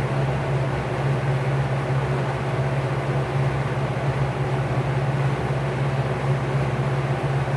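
Vintage Lakewood P-58 box fan motor running steadily and spinning a 20-inch LAU propeller blade: a constant rush of air over a steady low motor hum.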